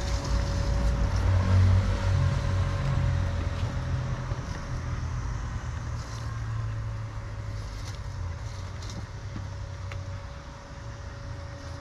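Worx Landroid M500 Plus robotic lawn mower running as it drives off across the grass: a steady motor whine over a low rumble that is loudest in the first couple of seconds and then fades.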